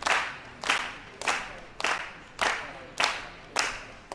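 Spectators clapping in unison, a steady rhythmic clap about every 0.6 seconds, each one echoing in a large hall.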